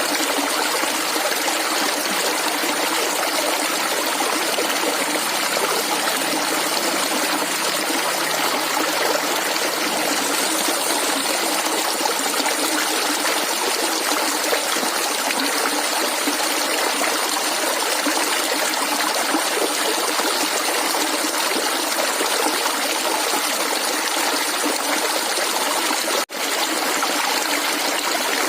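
Flowing water gurgling and trickling steadily over stones, clear and calm. It drops out for a split second near the end.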